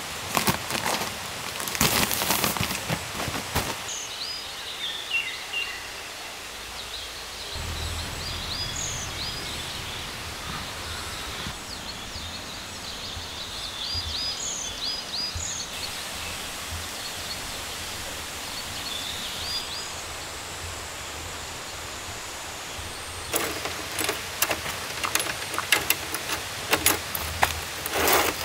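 Forest ambience: a steady outdoor hiss with short high bird chirps repeating through the middle. Clusters of sharp clicks and knocks from handling camp gear open the stretch and return near the end.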